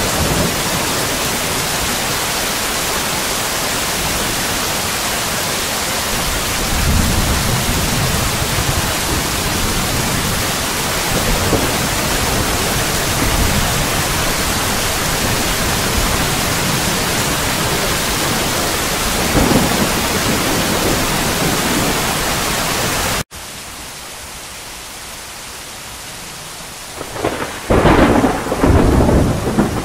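Steady rain hissing, with thunder rumbling low a few times. About three-quarters through, the rain cuts suddenly to a quieter rain, and the loudest thunder rumble follows near the end.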